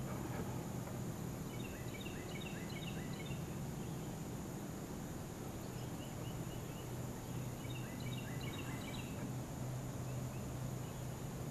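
Outdoor wildlife ambience: a steady low hum under a faint, steady high insect drone, with several bursts of rapid, high chirping calls.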